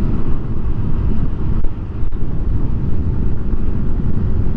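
Wind rushing over a motorcycle vlogging microphone at about 80 km/h: a loud, steady low rumble, with the motorcycle running underneath.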